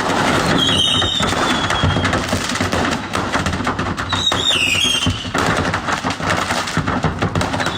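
Storm noise: a dense wind rush thick with fast crackling knocks and rattles. A high squeal slides down about a second in and again near four seconds.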